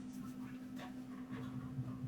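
Light clicks, taps and scrapes of hand-tool and parts handling while a sensor controller is refitted on an envelope press, over a steady low electrical hum.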